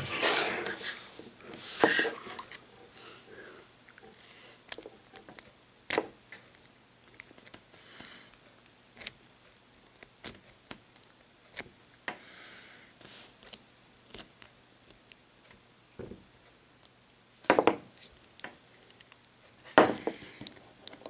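Paperclip rake and tension wrench working in a lock: irregular small metallic clicks and scraping as the pins are raked, with a few louder rattles near the start and toward the end.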